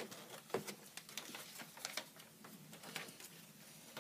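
Small plastic Lego pieces clicking and rattling as they are handled and pressed together: scattered light, irregular clicks.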